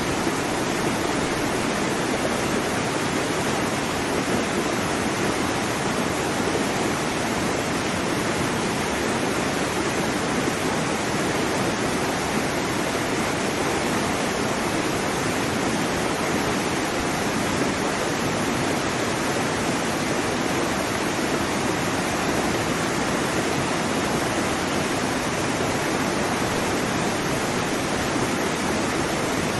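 Waterfall: water falling and splashing onto rocks and a pool, a steady, dense rushing with no breaks.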